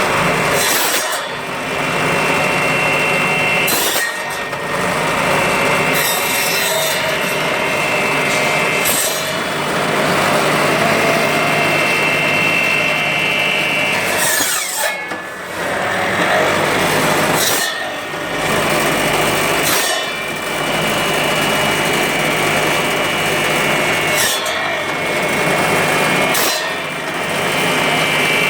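A motorized bone-cutting saw running and cutting through bone, with brief dips every few seconds between cuts. A steady high whine rides over the grinding during some stretches.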